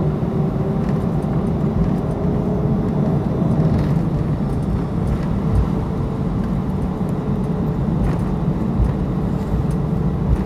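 Steady cabin noise inside an Airbus A319 taxiing after landing: a low rumble with the engines running at idle.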